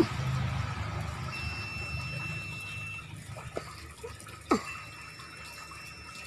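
Water splashing and trickling as fish are washed by hand in a tub of water. A low rumble fades over the first couple of seconds, and a short sharp chirp sounds about four and a half seconds in.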